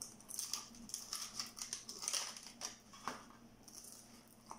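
Close-up crunching of a bite into a fried peach mango pie and chewing its crisp crust, with the paper sleeve crinkling; the crackling is busiest in the first three seconds, then a couple of single clicks.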